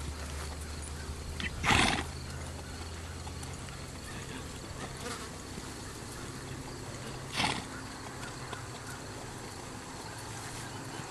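Quarter Horse's hoofbeats, faint, as it moves under saddle on a soft dirt arena, over a steady low outdoor rumble. Twice, about two seconds in and again about seven seconds in, comes a short loud rush of noise; the first is the loudest sound here.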